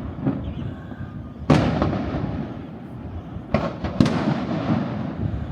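Fireworks shells bursting overhead: three sharp bangs, about a second and a half in and then twice close together near four seconds, each trailing off in a long rumbling echo.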